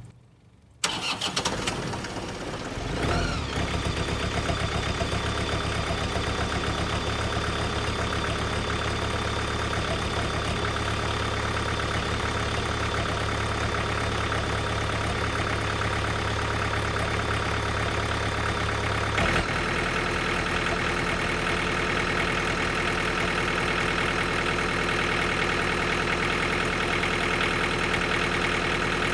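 John Deere compact tractor's diesel engine starting on its first try after being hydrolocked with oil: it catches suddenly about a second in and settles into a steady run. About two-thirds of the way through, its note shifts with a click to a lower, rougher speed.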